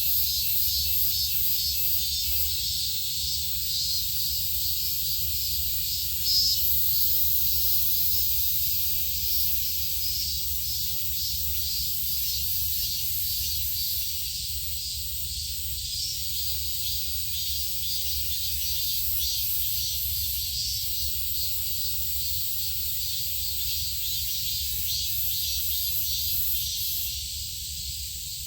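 Steady high-pitched insect chorus with a fine pulsing shimmer, over a low steady hum, with one brief louder sound about six seconds in.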